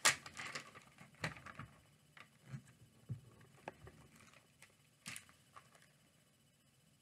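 Plastic-bagged comic books being handled and pulled out: crinkling and rustling of the bags with scattered taps and clicks. The noises are thickest in the first second, come in a few separate bursts after that, and die away about five and a half seconds in.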